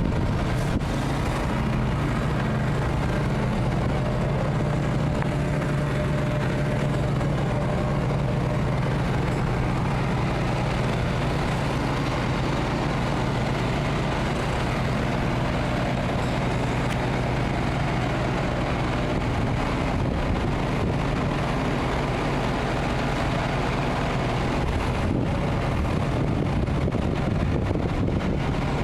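A steady low drone, like an engine running, holding the same level throughout.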